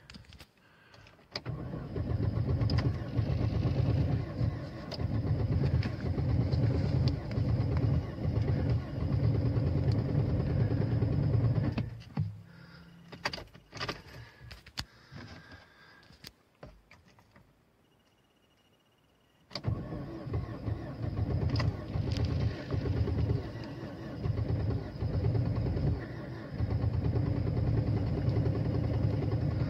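An Opel's engine is cranked hard in deep cold for about ten seconds without staying running, then stops. A few quiet clicks follow, and at about twenty seconds in the engine is cranked again, catches and runs.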